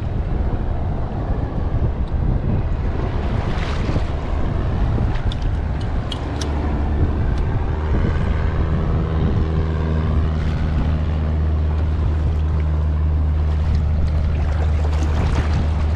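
Wind buffeting the microphone over sea water sloshing around a kayak. From about six seconds in, a steady low hum with overtones joins and becomes the loudest sound.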